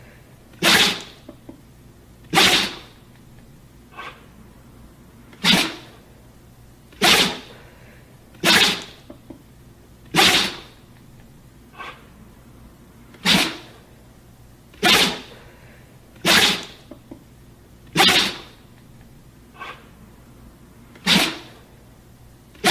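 A dog sneezing over and over: about a dozen short, sharp sneezes, one every one and a half to two seconds, with a few softer ones in between.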